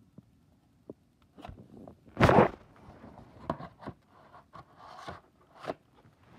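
Handling noise as the tape and recording device are moved about: light clicks and scrapes, with one loud scuff a little over two seconds in and a few shorter rustles after it.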